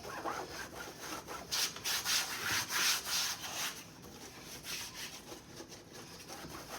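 Cloth scrubbing a surface in quick back-and-forth rubbing strokes, hardest and loudest in the middle, easing off after about four seconds in.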